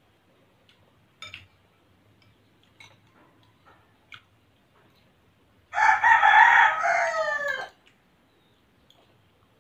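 A rooster crows once about six seconds in: a loud call of about two seconds that drops in pitch at the end. Before it, light clinks of spoons against bowls.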